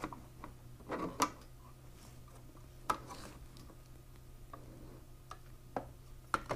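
Scattered light clicks and taps of a chrome frame cover being handled, lined up and pressed against a motorcycle frame, with the two sharpest knocks about one and three seconds in.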